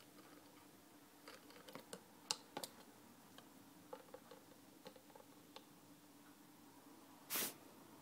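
Scattered light clicks and taps from a green-cheeked conure working a small plastic toy and stepping on a stainless-steel counter, then one short, louder rustle near the end.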